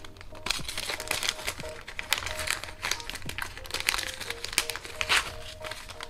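Thin plastic packet of tippet rings crinkling and crackling as fingers handle and open it.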